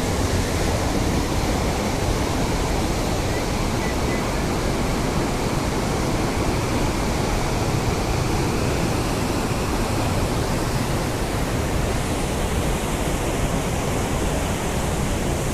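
Waterfall water falling and splashing in a steady, even rush.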